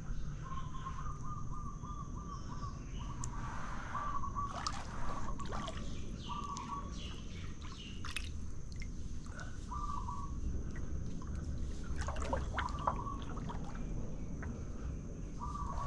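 Paddle water dripping and trickling with small splashes on a still stream, while a bird calls: a long rapid run of notes in the first few seconds, then short calls every few seconds.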